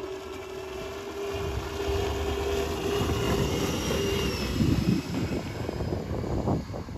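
Electric motor of a homemade foam boat whining at a steady pitch as the boat speeds closer. About four seconds in the whine gives way to the rushing and splashing of its hull and spray wake going past.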